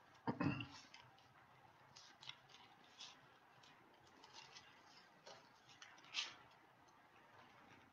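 Faint paper rustles and soft ticks as the pages of a Bible are turned, spaced irregularly, with one short, louder low sound just after the start.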